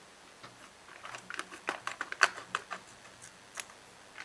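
Scattered light clicks and taps from the small parts and packaging of a carburetor rebuild kit being handled on a workbench, grouped between about one second in and near the end.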